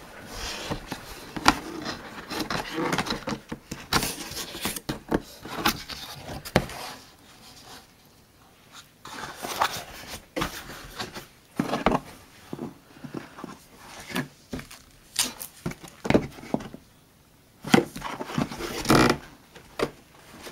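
A cardboard box being opened and unpacked by hand: cardboard and moulded pulp packing scraping, rustling and knocking in irregular bursts, with a quieter stretch about eight seconds in.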